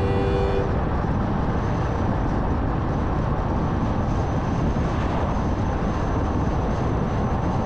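Car driving along an open road: steady tyre and wind noise, heaviest in the low end, with a thin high whine. A music cue's held notes end less than a second in.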